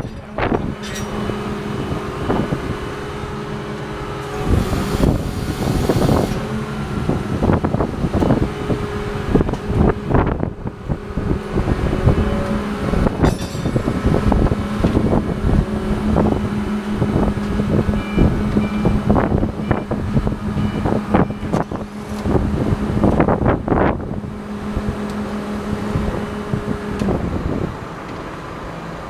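Heavy machinery running with a steady hum that starts about a second in and cuts off near the end. Irregular sharp knocks and clanks sound over it throughout.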